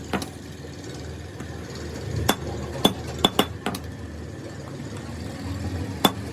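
Sharp metallic clinks: a handful of irregular light taps, each with a short ring, from metal clutch-plate parts or tools being struck or handled. A faint low hum runs underneath.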